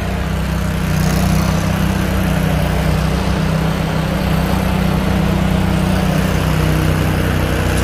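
Heavy diesel construction machinery running steadily, a low even engine drone.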